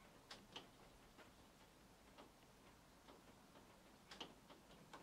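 Near silence: faint room tone with soft, short ticks about twice a second, a few of them a little sharper.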